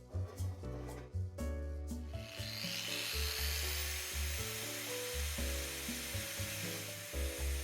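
Background music with a steady bass line. About two seconds in, a steady harsh hiss of a power tool grinding metal joins it and keeps going.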